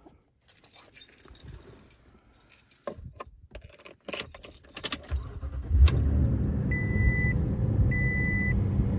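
Keys jangling and clicking, then a vehicle engine starts about five seconds in and settles into a steady idle. A high single-tone dashboard chime beeps twice at an even pace over the idle.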